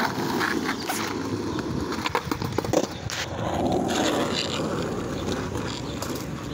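Skateboard wheels rolling on rough asphalt, a steady gritty rumble, with a few sharp clacks from the board along the way.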